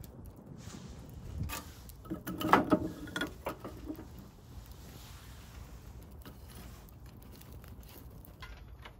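Small knocks, clicks and rattles of objects being handled, busiest around two to three seconds in, then a quieter stretch with only faint background noise.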